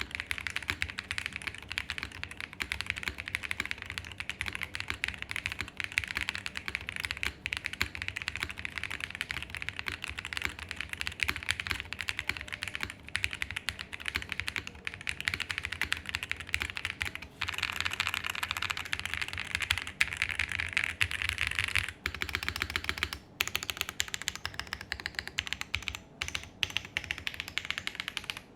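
Continuous fast typing on a mechanical keyboard fitted with relubed long-pole Akko V3 Cream Yellow Pro switches in an aluminium-case, POM-plate board with full foam. The keystrokes sound not very clacky, leaning toward thocky, with a few brief pauses in the typing.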